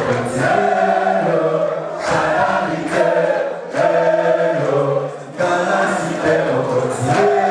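A group of voices singing a chant together in unison, in held phrases of a second or two with short breaks between them.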